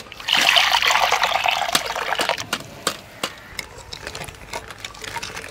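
Grape-flavoured jelly ice mixture being poured into small cups: a splashing pour for about two seconds, then light clicks and taps.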